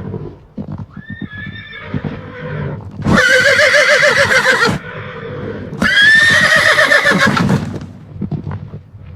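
Horse neighing: a faint whinny about a second in, then two loud whinnies with a quavering, shaking pitch, the last one opening with a falling glide.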